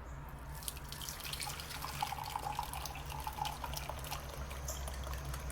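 Hot kadha, a spiced herbal decoction, being poured from the pan through a strainer into a cup: liquid pouring and dripping with many small splashes, starting about half a second in.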